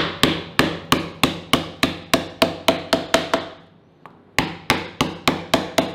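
Lemongrass stalks being pounded with a knife on a wooden cutting board to bruise them: steady knocks about three a second, stopping briefly a little past halfway, then starting again.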